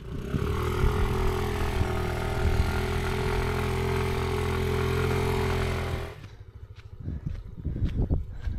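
A motor scooter's engine is held at high revs, steady in pitch, while its rear wheel spins in deep volcanic sand as the stuck scooter is pushed through. About six seconds in the engine cuts back suddenly, leaving uneven low noise and a few scattered knocks.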